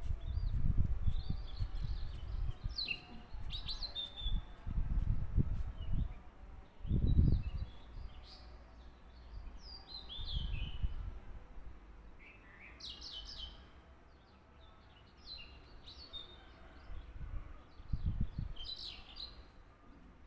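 Small birds chirping in short, scattered calls, with several low thumps and rumbles mixed in, the loudest about seven seconds in.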